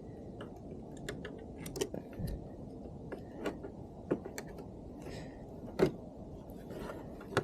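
Scattered light clicks and taps of small metal hardware and hand tools being handled while fitting a motorcycle mirror block-off plate, over a faint steady hum.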